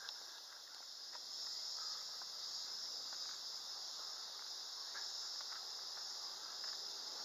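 A steady, high-pitched chorus of insects, with a few faint ticks lower down.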